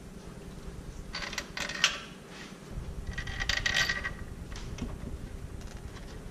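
Two short runs of metallic clicking and clinking from hand tools working the alternator's mounting bolts, the second with a brief metallic ring.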